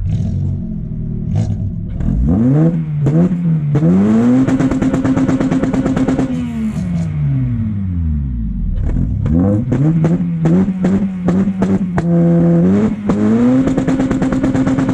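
Honda Civic Type R FN2's K20 four-cylinder engine revved hard through a Fujitsubo Power Getter single-exit exhaust. Twice the revs climb, hold high for about two seconds and fall away, with quicker blips and a steady mid-rev hold in between. The exhaust gives sharp pops and crackles as the revs drop.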